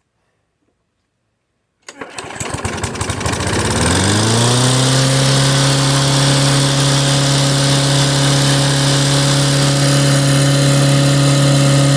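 Briggs & Stratton Classic single-cylinder lawn mower engine starting about two seconds in, revving up over a couple of seconds, then running at a steady high speed without surging. The governor spring has been re-hooked with barely any tension, and the speed now holds instead of revving out of control.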